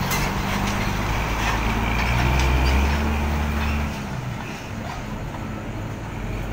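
Mitsubishi BM 117 bus's diesel engine pulling away, its low note rising as it accelerates, then dropping suddenly about four seconds in and going on more quietly as the bus moves off.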